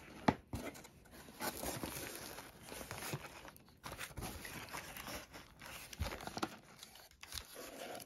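Cardboard shipping box being opened and rummaged through by hand: irregular rustling and crinkling of cardboard flaps and plastic product packets, with scattered taps and knocks, the sharpest one about a third of a second in.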